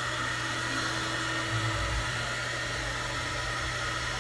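Hand-held hair dryer blowing steadily, with a couple of low bumps near the middle.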